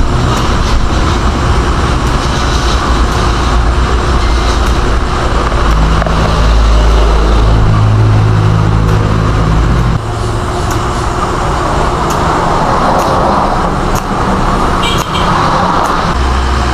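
Polishing wheel (buffer) running steadily while a custom exhaust elbow pipe is buffed, with a loud rushing hiss over a low motor hum that shifts in pitch a few times.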